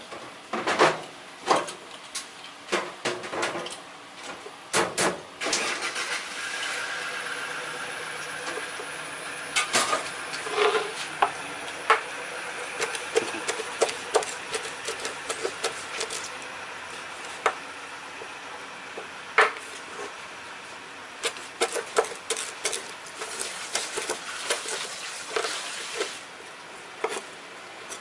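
Kitchen knife chopping on a wooden cutting board, with irregular sharp knocks in clusters as searobin skin is cut into thin strips. A steady engine-like drone comes up behind it about five seconds in and slowly fades after the middle.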